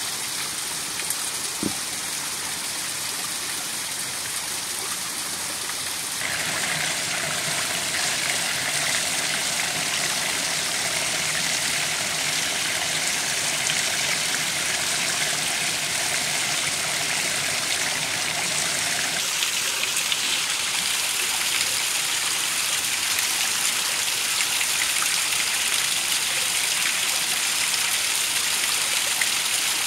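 Small woodland waterfall splashing into a stream: a steady rush of running water that gets a little louder about six seconds in.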